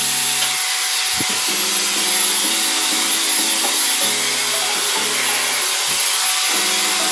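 Shark hair dryer running steadily on its lowest setting with no attachment: a steady rush of air with a thin high motor whine above it.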